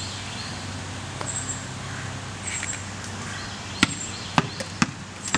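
A basketball being dribbled on a concrete driveway: four sharp bounces starting a little before four seconds in, about two a second.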